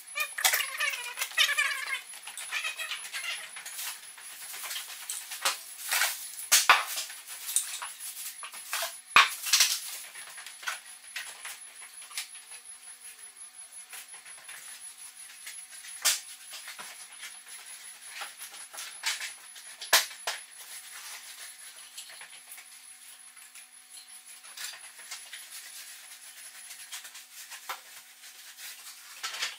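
Sporadic light metallic clicks and clinks, with a few sharper knocks, from hand oiling of a stationary steam engine's pistons and slides with an oil can.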